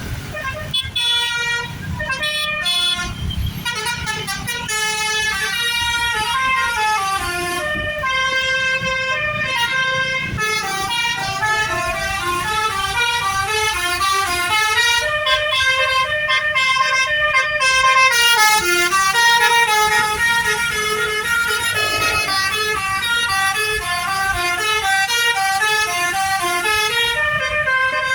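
Telolet horn on an NPM bus: a set of tuned horns playing a quick, continuous melody whose notes step up and down several times a second, over the low rumble of the vehicle.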